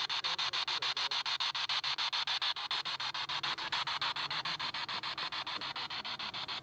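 Spirit box (radio ghost box) sweeping through radio stations: a steady hiss chopped into short pieces about ten times a second.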